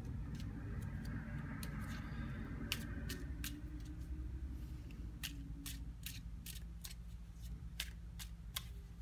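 Garbage truck going by: a steady low engine rumble with scattered sharp clicks and clanks, and a higher hum over the first few seconds.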